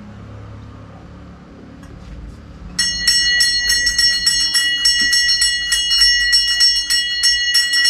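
A metal temple bell rung rapidly and continuously, several strikes a second over a steady bright ringing tone, starting about three seconds in; before that only a low background murmur.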